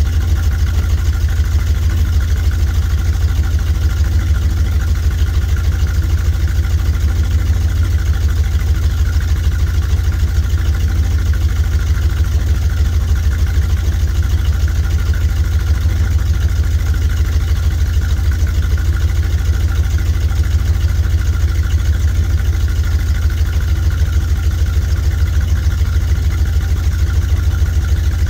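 1986 Chevy G30 motorhome's V8 engine idling steadily with an even exhaust pulse, still warming up after a cold start.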